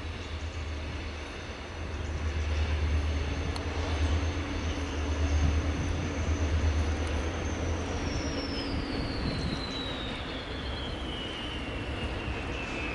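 Two BB 67400 diesel locomotives working in multiple with a freight train, approaching from a distance with a low engine rumble. A thin high tone slides steadily down in pitch over the second half.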